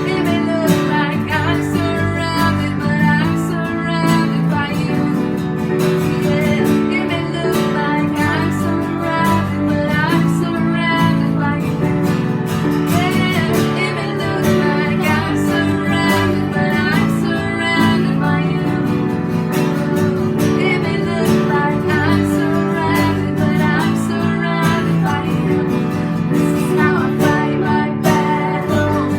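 Worship song: acoustic guitar strummed steadily, with a voice singing over it.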